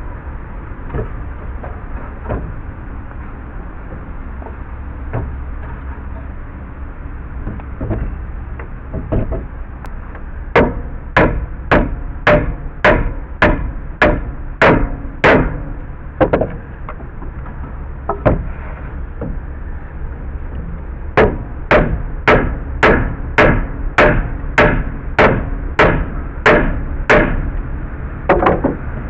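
Hammer blows on wood: a few light knocks, then two runs of rapid, even strikes, a dozen or so each at about two a second, the first about ten seconds in and the second about twenty seconds in.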